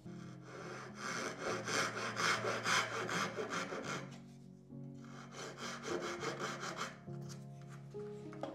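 Fine-toothed Japanese dozuki pull saw cutting wood in quick, short strokes, trimming a couple of kerfs off a tenon's haunch. The sawing comes in two runs, with a short pause about four seconds in.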